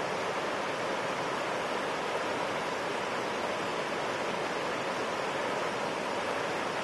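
Rushing water of a river rapid: a steady, even rush with no breaks.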